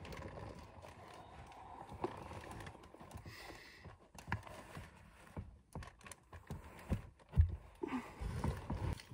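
A person shifting about inside a car: bedding rustling, with scattered knocks and bumps against the seats and door. The loudest thump comes about seven seconds in.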